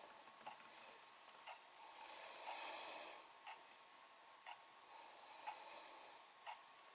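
Faint clock ticking steadily once a second, with a soft hiss swelling and fading twice.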